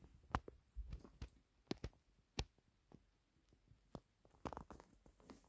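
Faint, scattered clicks and taps at irregular intervals, with a short cluster of them near the end, against an otherwise quiet small room.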